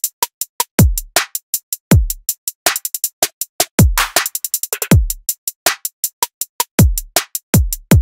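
Electronic drum-machine beat: a deep, booming kick that drops in pitch about once a second, with fast, crisp hi-hat-like clicks between the kicks and a few short high blips.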